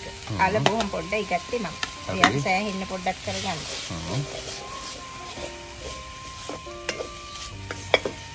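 Onion, garlic, green chilli and potato sizzling as they fry in an aluminium wok over a wood fire, stirred and scraped with a spoon. There are sharp clicks of the spoon against the pan, one about two seconds in and one near the end.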